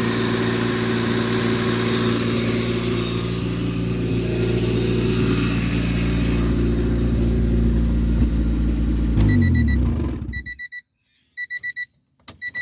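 1994 Honda Civic DX's four-cylinder engine idling with an exhaust leak, then switched off about nine seconds in and winding down to a stop. After it, a high electronic beeping in short runs of a few beeps, with a sharp click near the end.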